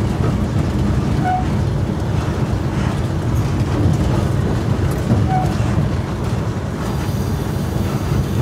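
Diesel locomotive 401Da running along the track, heard from its cab: a steady low engine drone mixed with the rumble of the wheels on the rails. A faint high whine comes in near the end.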